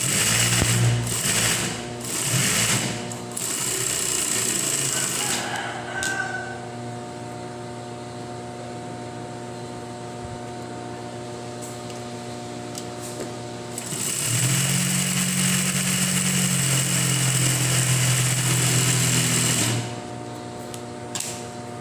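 Juki 5550 industrial lockstitch sewing machine stitching a test seam in short fast runs for the first five seconds or so, then its motor humming steadily, then a louder, longer steady run of about six seconds near the end.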